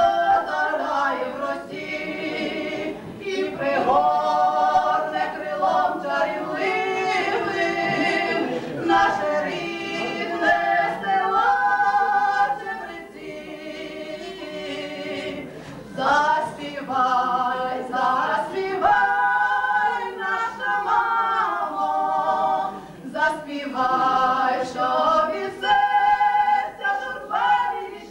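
Two women singing a Ukrainian folk song unaccompanied, in sung phrases, with a quieter stretch about halfway through.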